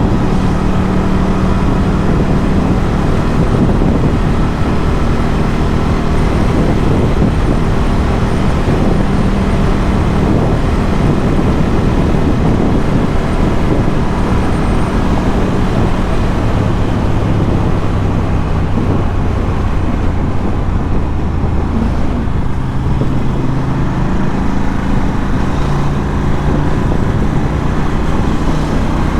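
Ducati Scrambler 1100's air-cooled L-twin engine through a Termignoni exhaust, running steadily under way at cruising revs. The engine note eases lower about halfway through, then climbs again near the end.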